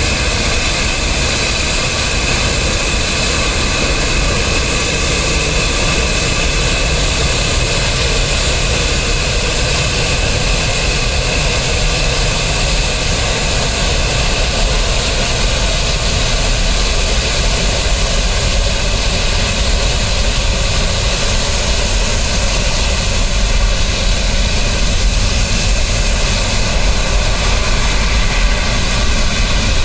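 The four Lotarev D-18T turbofan engines of an Antonov An-124-100 run at taxi power as the freighter moves along the ground: a steady, loud jet noise with a fan whine over it. It grows gradually louder in the second half.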